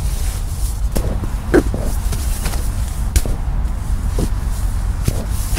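Rustling and a few short knocks of a sleeping bag and camping gear being handled and rolled up inside a tent, over a steady low rumble.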